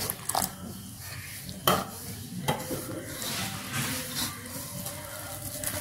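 A hand mixing rice flour and water into dough in a stainless steel bowl: rustling and scraping against the bowl, with a few sharp knocks on the metal.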